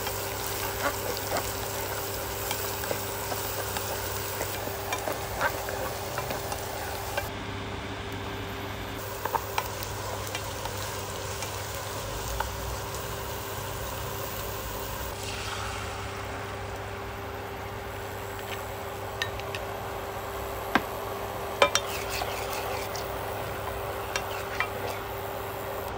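Chopped shallots, garlic and chilli sizzling in oil in a nonstick saucepan, stirred with a plastic spatula that clicks and scrapes against the pan. From about two-thirds of the way in the sizzle softens, and near the end the spatula is stirring a thin liquid sauce.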